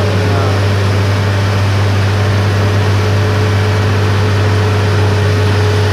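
Heavy diesel engine of a loaded logging truck running hard at steady high revs, labouring to climb a rain-slicked muddy hill road.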